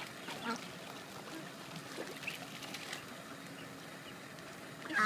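Eastern spot-billed ducks and ducklings feeding on a pond: soft water sounds with a few faint, short high peeps. A sudden loud sound breaks in right at the end.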